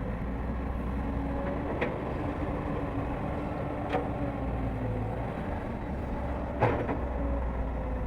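Excavator's diesel engine running steadily, with three sharp knocks about two seconds apart, the last one the loudest, near the end.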